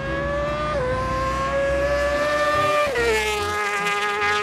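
Racing superbike engine at high revs under full throttle. Its high-pitched note climbs steadily and drops sharply twice as it shifts up a gear, about a second in and again near three seconds, then holds steady.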